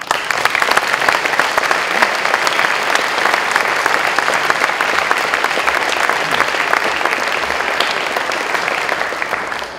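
Audience applauding: many people clapping together, dense and even, easing off slightly near the end.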